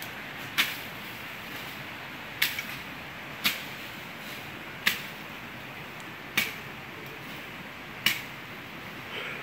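Sharp chops of hand blades cutting through grass and brush as workers clear a trail, six strokes about a second and a half apart over a steady background hiss.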